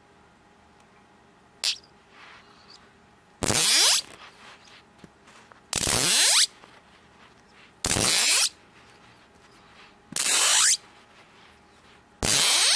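Rattlesnake-noise magnet toy: a pair of magnets snapping together five times, each a buzzing rattle about half a second long that rises in pitch, roughly every two seconds, after a single faint click.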